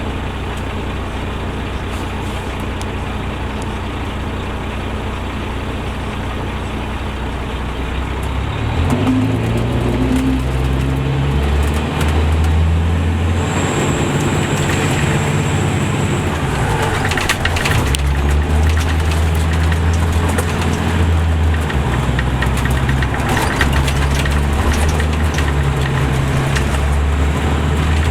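Diesel engine of an MCI D4500CL coach, a Caterpillar C13, idling steadily, then pulling away about eight seconds in. The engine gets louder and its note steps up and down several times as the automatic transmission shifts.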